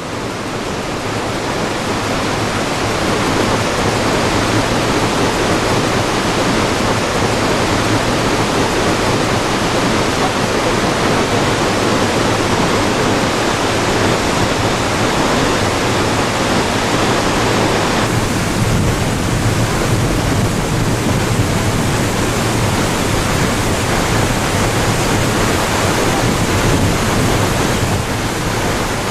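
Waterfall: a steady, dense rush of falling water. It swells in over the first few seconds and its tone shifts abruptly about two-thirds of the way through.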